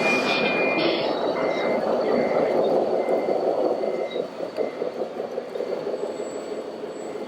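Scale RC truck or construction machine running, its sound module giving a steady engine noise that eases off after about four seconds, while a reversing beeper sounds in short, even beeps about twice a second.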